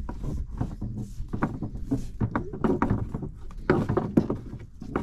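Rope and fishing net being hauled up over the side of a small dinghy, giving an irregular run of rustles, rubs and knocks.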